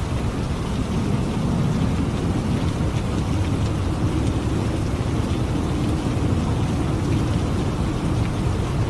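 Steady heavy rainfall in a thunderstorm, with a low rolling rumble of thunder underneath that swells about a second in.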